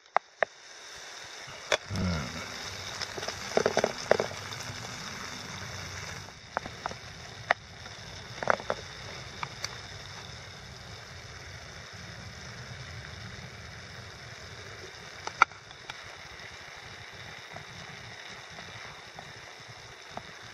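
Minced meat sizzling steadily as it fries in a camping pan, with a wooden spoon now and then scraping and knocking against the pan as it is stirred.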